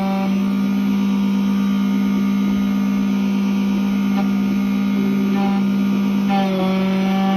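Electric key-cutting machine running with a steady motor hum, its tone shifting about five seconds in and again a little later as the cutter works.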